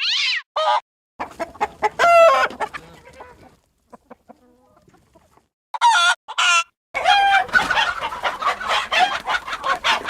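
Chicken sound effects played one after another: short separate clucks and squawks, then a busier stretch of several hens clucking over one another in the last few seconds.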